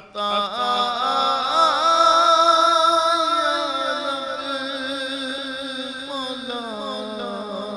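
A man sings an Urdu naat (devotional poem) unaccompanied into a microphone: one long, slowly drawn-out melodic line with wavering, ornamented pitch. Beneath it runs a steady low drone.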